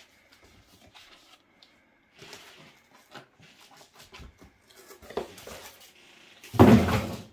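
Cardboard packaging being handled: light rustles and soft knocks as a box is moved about, then a louder rush of cardboard scraping, under a second long, near the end.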